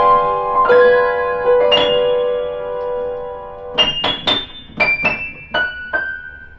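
Keyboard instrument with a piano-like sound: held chords, then from about four seconds in a run of about seven short, separate high notes, falling overall, with the last note ringing out and fading.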